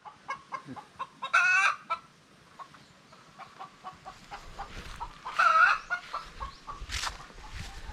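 A flock of laying hens clucking: many short clucks, with two louder drawn-out calls about a second and a half in and again about five and a half seconds in.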